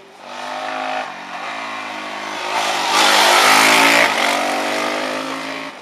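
Rally motorcycle engine revving hard as the bike accelerates up the road and passes close. It is loudest about three seconds in, then fades.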